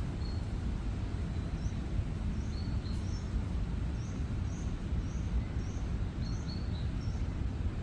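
Small songbird chirping: a run of short, high chirps, most of them from about two seconds in, over a steady low rumble.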